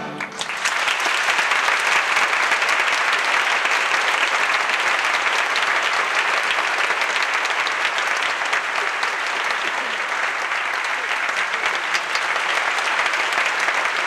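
Large theatre audience applauding steadily, breaking out about half a second in as the orchestra's final chord dies away.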